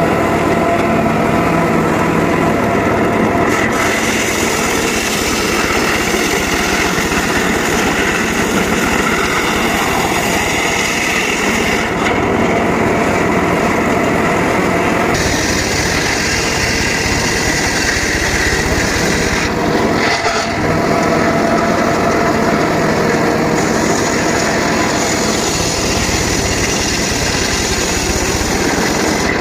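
Homemade engine-driven circular saw running loudly and steadily as it cuts teak wood; the tone of the blade shifts a few times as it works through the cut.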